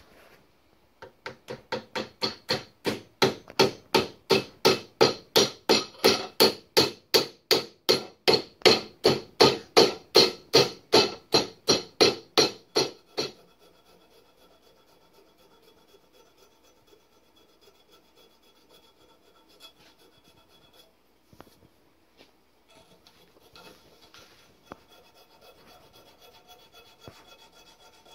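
Hand file rasping on the hardwood wedge and handle top seated in an axe head, about three even strokes a second that grow louder, then stop about 13 seconds in. Only light, faint scraping follows.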